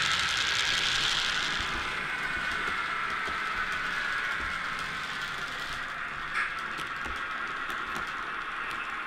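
HO-scale model trains running on the layout track, a clattery mechanical rolling with faint ticks. It is loudest in the first second or two as a train of flat wagons passes, then settles to a quieter, steady running, with a single sharper click about six seconds in.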